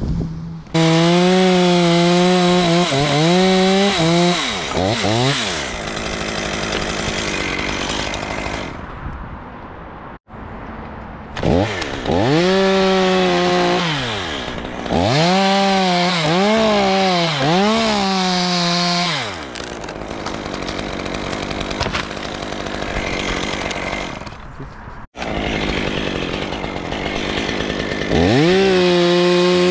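Chainsaw cutting dead, dry oak, its engine revving up and dropping back again and again in bursts. The sound cuts off abruptly for an instant twice, about ten seconds in and again near twenty-five seconds.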